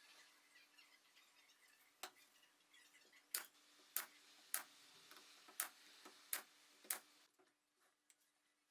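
A series of about seven sharp clicks or taps at uneven intervals, over a faint steady hiss that drops away near the end.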